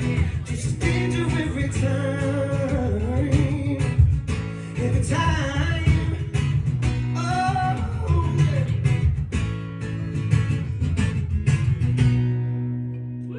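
Live guitar and a singing voice closing out a song, the voice sliding through wordless phrases over the chords. Near the end the voice stops and a last low chord rings out alone.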